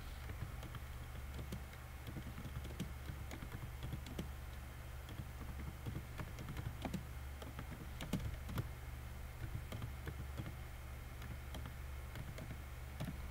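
Typing on a computer keyboard: irregular, quick keystroke clicks over a steady low hum.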